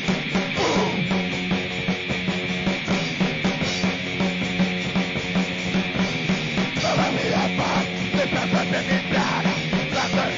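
Harsh, distorted grind/noise music: fuzzed guitar and bass over a steady low drone, with fast, dense drum hits. A new track cuts in abruptly just before it begins.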